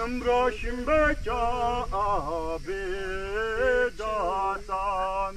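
A man singing a chant-like melody in short phrases, his pitch sliding up and down, over a faint steady low hum.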